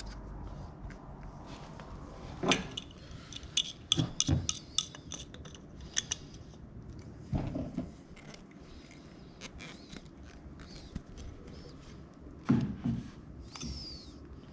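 Irregular clicks, knocks and clinks as a stainless steel fitting and a plastic hose barb adapter are handled and screwed together with an adjustable wrench, with a brief squeak near the end.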